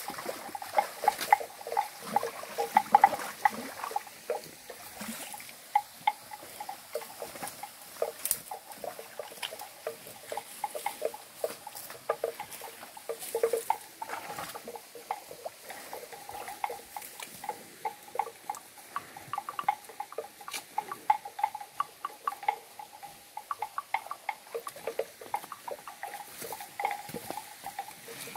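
Water buffalo wading and drinking in a shallow stream: a constant run of short, irregular splashes and clicks.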